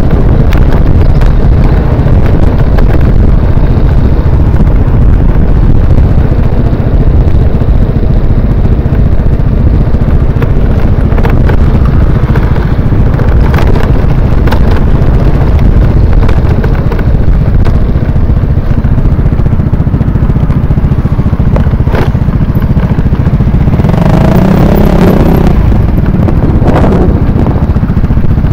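Motor scooter engine running steadily under loud, constant wind and road rumble while riding, with a few sharp knocks. Around the last few seconds an engine note rises and falls.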